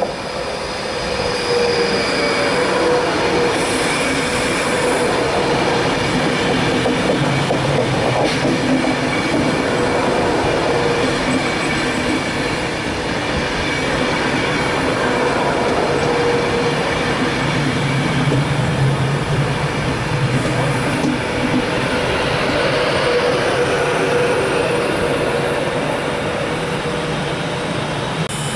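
Class 390 Pendolino electric train running slowly into the station, a steady whine over the rumble of its carriages, with wheels squealing on the curve.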